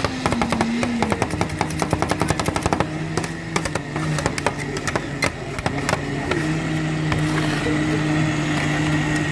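Metal spatulas rapidly clicking and tapping as they chop rolled ice cream mix on a stainless steel cold plate; the clicks thin out after about three seconds into scraping and spreading. A steady low hum runs underneath.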